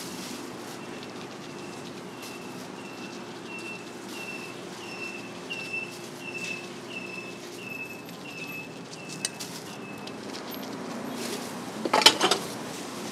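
A run of short, high, slightly falling chirps, about two a second, over a steady low hum; the chirps stop about two-thirds of the way through. Near the end comes a brief, loud clatter of several quick strikes.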